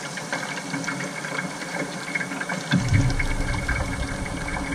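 Kingfish steaks frying in oil in a covered pan: a steady sizzle with scattered small crackles. A low rumble joins a little over halfway in.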